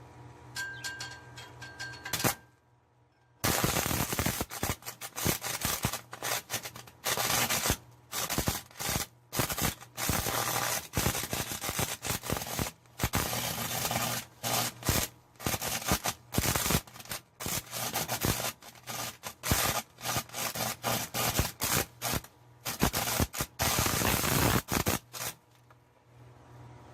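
Stick-welding arc crackling from a homemade welder built from two microwave oven transformers. It catches about three and a half seconds in and runs for some twenty seconds, breaking off and restriking many times as the electrode sputters. A steady low transformer hum sits underneath.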